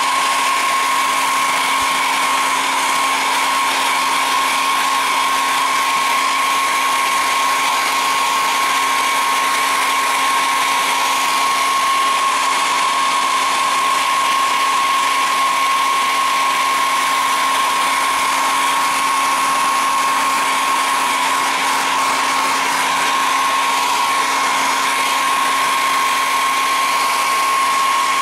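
Handheld hair dryer running steadily: a constant rush of blown air with a steady high motor whine.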